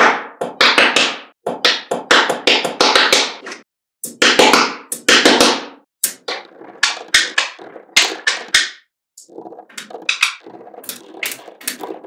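Small magnetic balls clicking and clattering as slabs of them are pressed and snapped onto a stacked block: runs of rapid clicks with short pauses between them.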